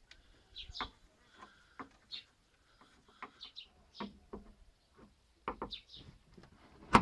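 Tailgate gas strut being handled at its ball-stud mount: a string of small clicks and knocks, with one sharp, loud click near the end. Birds chirp in the background.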